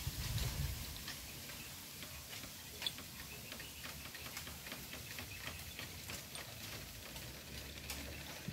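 Soft, irregular clicks and ticks, a few a second, from a pet mongoose mouthing a finger held right at the microphone. A low handling rumble sounds in the first second.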